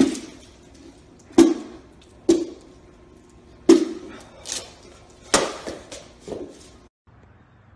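A whole pumpkin being struck hard again and again: five heavy thuds about a second or so apart, with a few lighter knocks between them. The sound cuts off suddenly near the end.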